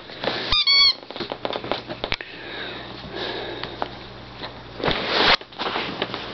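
Puppy chewing and mouthing his toy pig: a short high squeak about half a second in, then chewing and scuffling noises with scattered small clicks.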